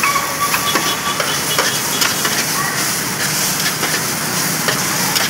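Noodles frying in a large steel wok, with a steady sizzle. A metal spatula scrapes and clacks against the pan again and again as the noodles are tossed.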